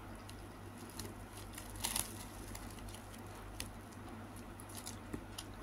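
Thin plastic bag crinkling in short rustles as fingers work a pineapple slice out of it, with a louder crinkle about two seconds in and scattered small clicks.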